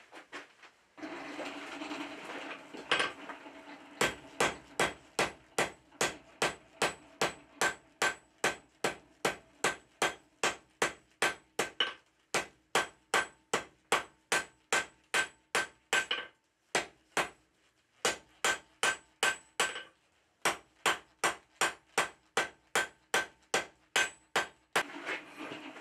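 Hand hammer striking a red-hot steel bar on an anvil in a steady rhythm, about two to three blows a second, with a few short pauses; each blow rings briefly.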